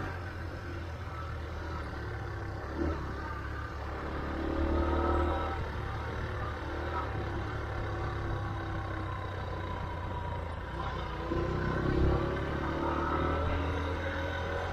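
Motorcycle engine running while riding along a road, its note rising and swelling twice, about four seconds in and again near eleven seconds.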